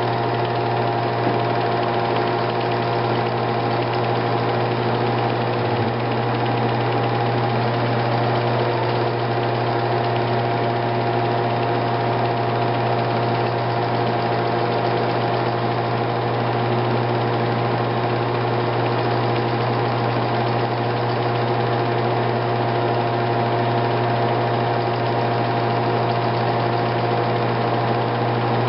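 Steady mechanical hum with a strong low drone and several fixed higher tones, unchanging throughout.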